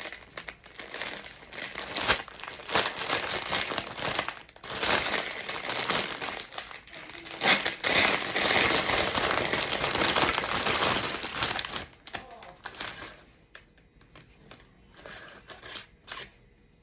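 Packaging crinkling and rustling as a parcel is handled and unwrapped, dense and continuous for about twelve seconds, then dropping to faint, scattered rustles.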